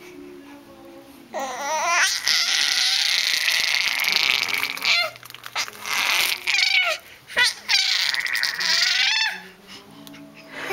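Baby's loud, high-pitched squealing and shrieking in several bursts, the first and longest running a few seconds.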